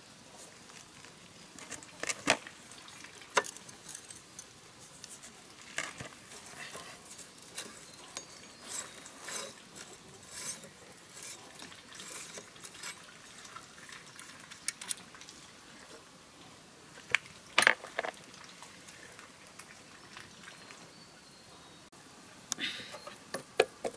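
A metal rod scraping and clinking against a metal pipe while it is worked in a plastic basin of liquid, with scattered sharp metallic clicks. Several knocks follow near the end as metal parts are fitted onto the engine.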